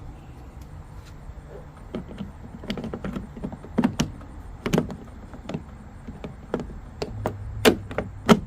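Plastic exterior door handle being worked into its opening in a pickup truck's door: irregular clicks, knocks and scrapes as it is angled and pushed into place, with two sharper knocks near the end. A low hum sits underneath near the end.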